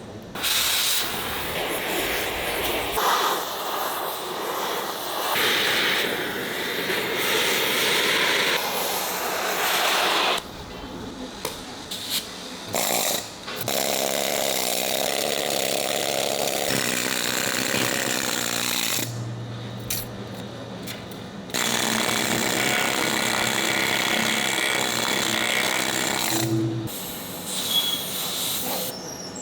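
Pneumatic needle gun hammering rust scale off the seized hinges of the KV-1S cupola's periscope armour covers, run in several long bursts that stop abruptly with short breaks between.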